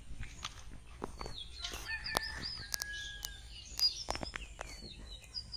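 Birds chirping in quick, short calls, with one longer held note about two seconds in, over scattered sharp clicks and taps.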